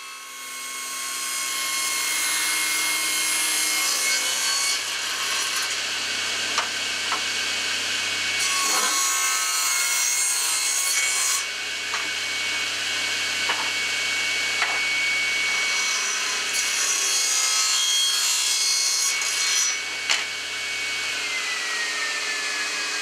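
Table saw running and ripping a squared timber lengthwise into strips in several passes, each cut a louder stretch of high hissing noise over the saw's steady whine. Near the end the whine falls steadily in pitch as the blade winds down.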